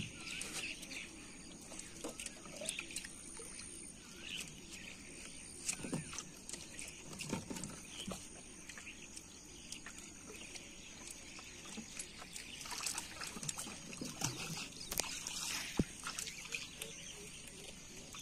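Quiet river ambience: faint scattered bird chirps and a light trickle of water, with a few soft knocks on the wooden boat as a hand line is worked.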